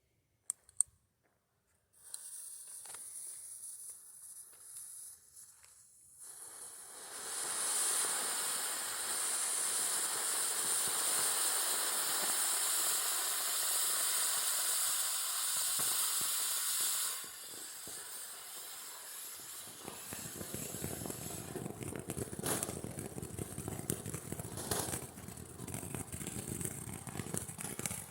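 Small consumer firework fountain burning: a fuse hisses for a few seconds, then the fountain sprays with a loud, steady hiss for about ten seconds. It then drops to a quieter, lower rushing noise as it burns down.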